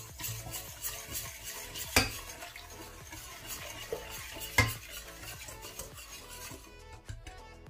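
A utensil stirring milk into a flour, starch, egg and sugar mixture in a pot, with a steady scraping and swirling against the pot. The utensil knocks sharply on the pot twice, about two seconds in and again about four and a half seconds in.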